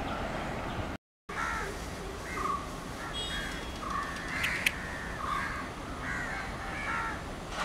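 Crows cawing repeatedly, a string of short harsh calls, over a steady background hiss. The sound drops out completely for a moment about a second in.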